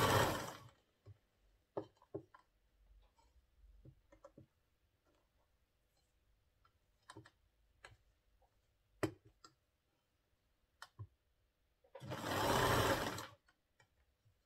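Bernina electric sewing machine stitching in short runs: one run stops about half a second in, and another lasts about a second and a half near the end. Between the runs come faint clicks and rustles of the fabric being handled.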